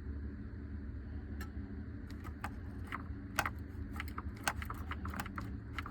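Steady low mechanical hum, with irregular sharp clicks and rattles from about a second and a half in.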